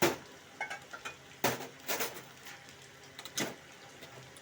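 Metal utensils and pots knocking and clinking while tea is being made: about five sharp strikes spread over a few seconds, some with a short ring.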